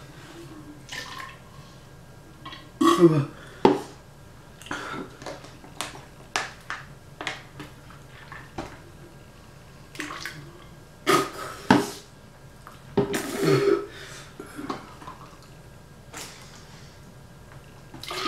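Drinking water from a plastic squeeze sports bottle: irregular sucking, slurping and gulping at the spout, with swallows and breaths between. The loudest gulps come about three seconds in and again around the middle.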